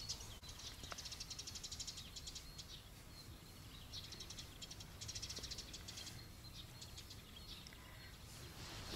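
Small birds singing, with rapid trills of quickly repeated high notes about half a second in and again about halfway through, and short single chirps between, over a low steady rumble.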